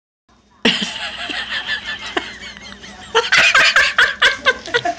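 A person laughing: snickering at first, then a run of quick repeated laughs from about three seconds in.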